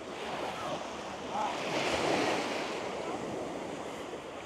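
Sea waves washing onto a sandy beach, swelling to their loudest about two seconds in.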